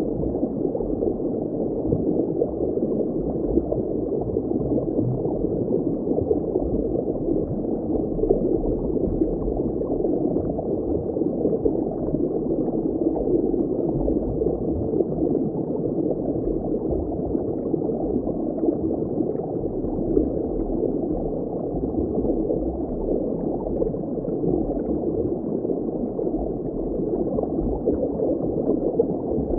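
Steady, muffled bubbling water ambience, like being under water, with everything low in pitch and nothing bright or sharp.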